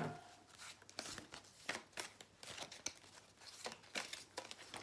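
A deck of oracle cards being handled and shuffled by hand: faint, irregular rustling and soft clicks of card stock.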